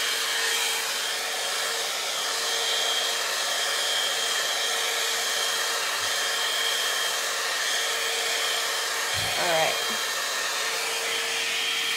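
Head Kandy Commitment Issues blow-dry brush, a hot-air brush, running steadily while drying and styling hair: an even rush of air with a faint steady whine from its motor.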